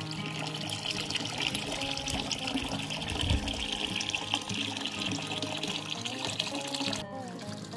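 Water running in a steady stream, cutting off suddenly about seven seconds in.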